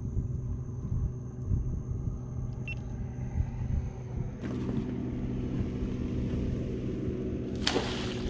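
A boat's engine idling steadily, with more hiss joining about halfway through and a brief rush of noise near the end.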